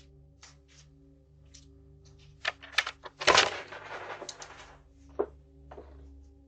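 Knocking and clicking at a door, then a loud rattling clatter for about a second and a half beginning three seconds in, with a few more knocks near the end. A steady low hum runs underneath throughout.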